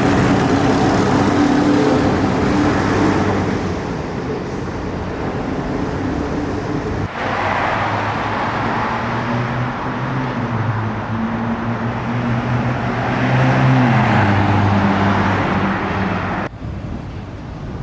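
Road traffic: car engines humming steadily as vehicles pass, with tyre and road noise swelling and fading. One engine's pitch drops about two-thirds of the way through.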